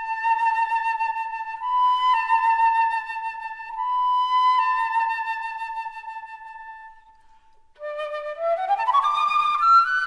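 Background music: a solo flute holding long notes that step up slightly and back down, then, after a short pause, a quick rising run of notes near the end.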